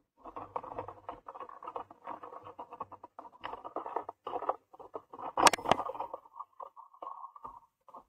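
Grey squirrel scrabbling at the feeder and camera mount: scratching, rustling and irregular knocks, muffled by the camera's waterproof case, with one sharp loud knock about five and a half seconds in.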